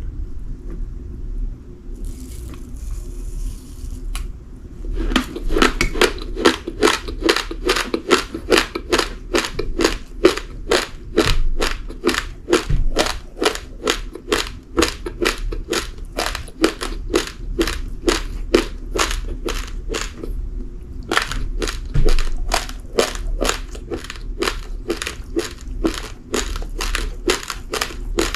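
Raw uncooked rice being chewed, hard grains crunching between the teeth in a steady rhythm of about three bites a second. The chewing starts about five seconds in, pauses for a moment about two-thirds of the way through, then goes on.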